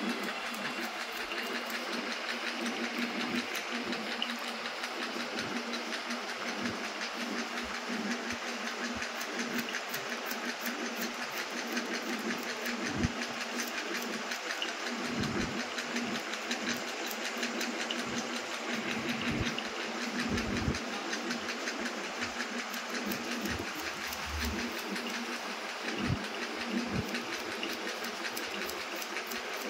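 Barber's steel shears snipping rapidly and continuously in scissor-over-comb cutting, a quick run of crisp metallic clicks, over a steady low hum.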